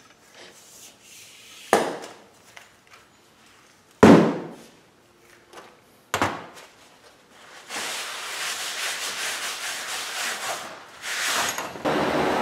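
Workshop handling noises: three sharp knocks about two seconds apart, the second the loudest, then several seconds of scraping. Near the end a steady mechanical hum starts and keeps going.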